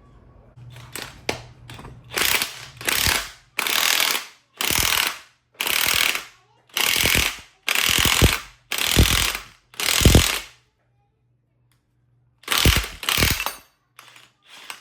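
Ratchet wrench turning the screw of a C-clamp ball joint press, pressing a new lower ball joint into a Honda Civic's control arm. About ten ratcheting strokes come roughly a second apart, then a pause, then two more.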